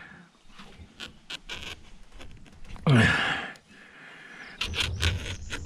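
A small knife scraping and cutting into the thick outer sheathing of a heavy copper power cable, with scattered sharp clicks and rubbing. About three seconds in there is a short strained grunt of effort, and the scraping grows denser near the end.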